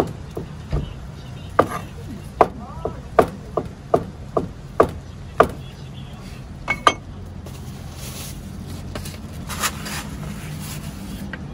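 Cleaver chopping through boiled pig's liver onto a wooden cutting board: about a dozen sharp knocks, roughly two a second, stopping about seven seconds in. Then a softer rustling scrape as the slices are swept into a foam tray, over a steady low hum.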